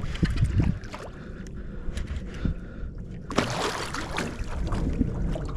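Water slapping and knocking against a small boat, with a short loud splash-like rush about three and a half seconds in.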